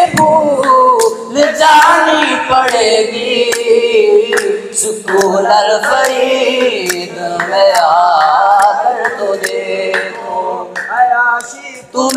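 Male voices singing a comic qawwali-style song unaccompanied, with hand claps keeping time; the singing dips briefly just before the end.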